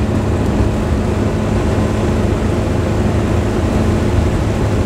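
Steady low drone of a 22-foot motorhome cruising at highway speed: engine and tyre-on-road noise heard from inside the cab.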